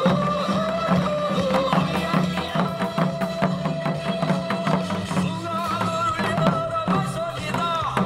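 Janggu hourglass drums played in rhythm along to upbeat Korean trot-style music: a steady run of drum strokes under a wavering melody.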